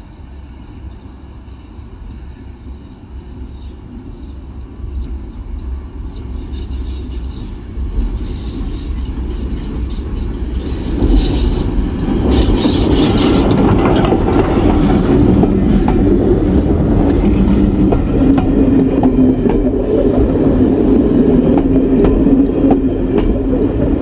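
A small steam tank locomotive hauling a coach approaches from a distance, growing steadily louder, and runs close past from about eleven seconds in. The train's running noise stays loud as the coach goes by.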